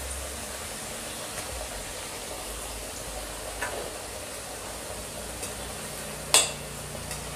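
Potato slices deep-frying in hot oil in a kadhai, a steady sizzle. About six seconds in, a slotted metal skimmer gives one sharp clink against the pan.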